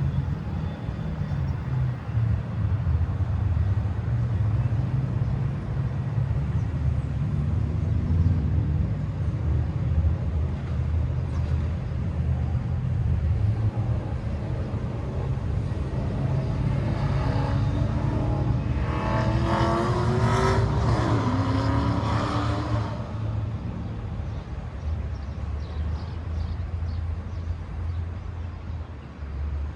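Steady low rumble of a train at the station, with a louder vehicle passing between about 17 and 23 seconds in, its pitch dropping as it goes by.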